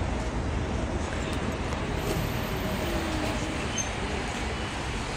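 Steady road traffic noise from cars on the street below, a continuous hum with a faint engine note drifting in pitch near the middle.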